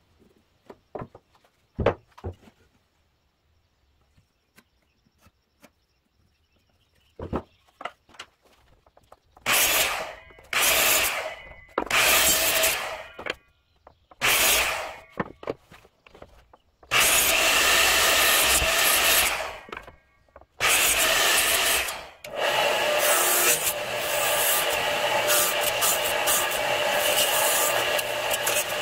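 A few light knocks and taps of wood being handled, then a run of short power-saw cuts through pine strips on a Bosch sliding miter saw, each about a second long with brief pauses. Near the end a radial arm saw runs steadily, cutting a small pine block.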